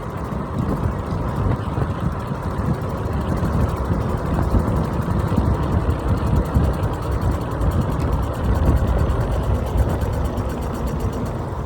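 Wind rumbling on the microphone, with tyre and road noise, as an iENYRID M4 Pro S+ electric scooter rides down a hill.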